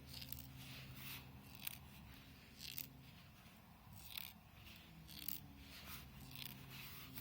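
Faint, irregular little rattles and ticks from inside a Razer Blade 15 base model laptop, roughly one a second, over a steady low hum. The owner takes them for something small and loose, apparently inside the speaker.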